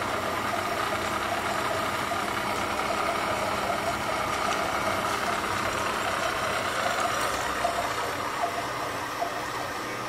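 End mill on a CNC milling machine cutting a metal plate under coolant spray: steady spindle and cutting noise, with a few sharp ticks in the last few seconds.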